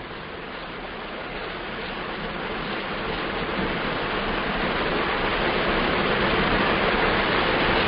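Steady background hiss on an online-call microphone, growing gradually louder throughout.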